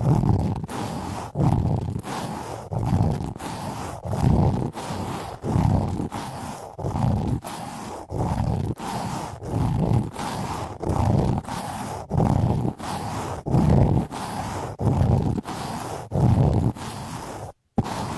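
ASMR trigger strokes rubbed directly against a binaural microphone, alternating between left and right: a steady rhythm of low, rumbling whooshes, about one and a half a second. The sound cuts out abruptly near the end.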